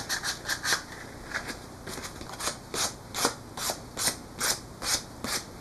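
Folded fine sandpaper (180 grit) rubbed back and forth through the split nock of a cane arrow shaft, about three quick scratchy strokes a second. It is smoothing the sharp edges of the nock so they won't damage the bowstring.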